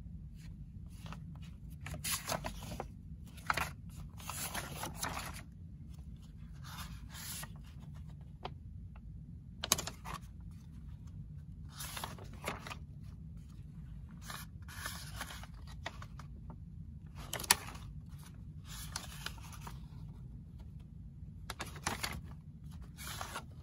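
Paper instruction booklet being handled, its pages turned and flattened, rustling in short bursts every second or two with a few sharper snaps of paper, over a steady low hum.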